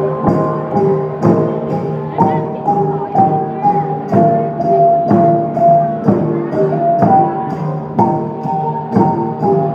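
Central Highlands gong ensemble: a row of flat hanging gongs (chiêng) struck in a steady beat, each stroke ringing on at its own pitch so the tones interlock into a repeating melody, with sharp high ticks on the beats.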